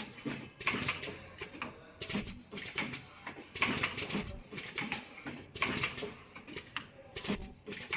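Face mask earloop spot welding machine working through repeated cycles: a clattering burst of clicks and hiss every one and a half to two seconds, five times.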